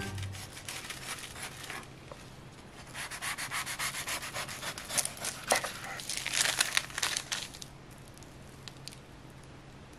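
Knife sawing back and forth through the crisp, sugar-dusted crust of a baked apple strudel, a rapid rasping scrape that starts about three seconds in and stops about two seconds before the end.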